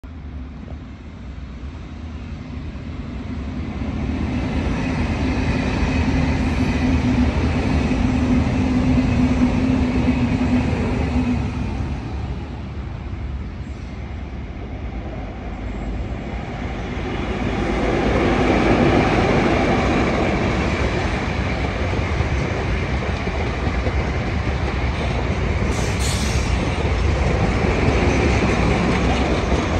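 XPT diesel-electric passenger train passing. A steady low engine drone builds and peaks, then eases, before the rolling rumble and clickety-clack of wheels on the rails swells again and stays loud.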